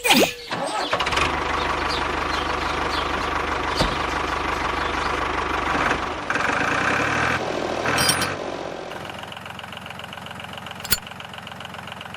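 A motor running steadily, engine-like, starting with a sharp sweep in pitch and dropping to a quieter, even hum for the last few seconds, with one sharp click near the end.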